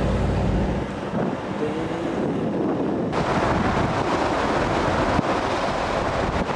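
Wind buffeting the microphone of a moving vehicle, over a low road and engine rumble. The wind noise gets stronger about three seconds in.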